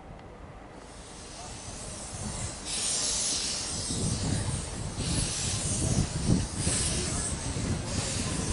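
Small narrow-gauge Hunslet saddle-tank steam locomotive moving off slowly with its cylinder drain cocks open. Steam hisses from the cylinders, faint at first and loud from about three seconds in, pulsing with the slow beats of the engine.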